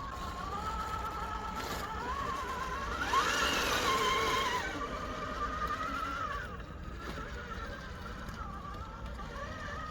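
Vanquish VRD Stance RC rock crawler's electric motor and geared drivetrain whining, its pitch wavering up and down with the throttle. It gets louder and harsher for about a second and a half, starting around three seconds in.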